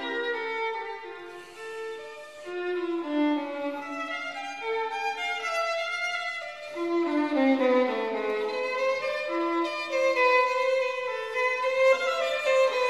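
Background instrumental music: a melody of held notes that step and glide from one pitch to the next.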